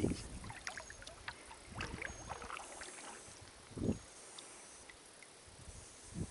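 Kayak paddle strokes in calm river water: a low swish of the blade at the start, again about four seconds in and near the end, with scattered small drips and clicks in between.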